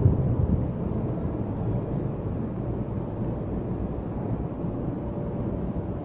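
Steady low rumble of room noise, with a faint steady hum, picked up through the lecture microphone.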